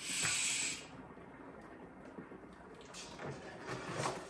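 Hand-pumped fluid extractor (Mityvac) hissing as a stroke draws air and liquid up its hose from the fuel tank. The hiss lasts just under a second at the start, then it quietens to faint handling sounds. The extractor is pulling poorly.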